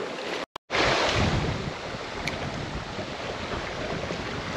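Shallow creek running steadily over a rocky bed, an even rush of water, after a brief dropout about half a second in.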